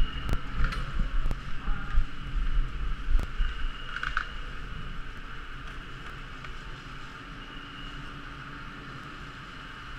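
Steady hum of gondola station lift machinery, with low rumbling and a few sharp clicks in the first three seconds, then settling to an even drone.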